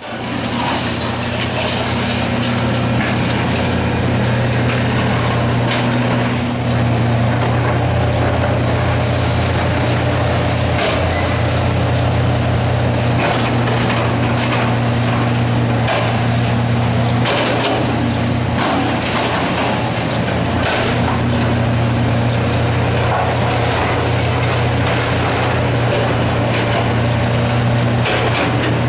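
John Deere hydraulic excavator's diesel engine running steadily under load as it tears down a building, with scattered cracks and crashes of wood and debris being broken and dropped.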